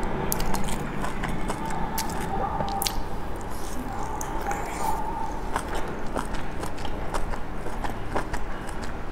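Close-up eating sounds: wet bites, chewing and lip smacks into soft food coated in chili oil, as sharp irregular mouth clicks. A steady faint whine comes and goes in the background.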